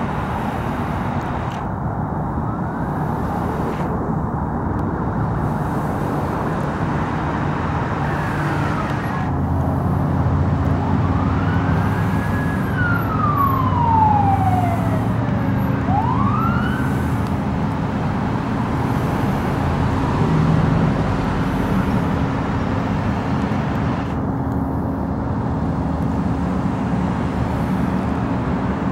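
Fire engine arriving with its siren sweeping a few times, falling and then rising in pitch, between about eight and seventeen seconds in. Its engine's deep steady hum comes in at the same time and runs on over a constant rushing road noise.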